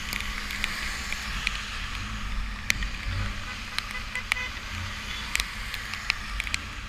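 Motorcycle running on the road in heavy rain: a steady low engine rumble under a hiss of rain and wet road, with sharp ticks scattered throughout.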